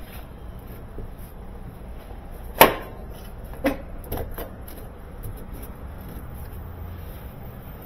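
A sharp knock about two and a half seconds in, then two lighter knocks a second or so later, as a washing machine's sheet-metal top panel and its hinge bracket are handled.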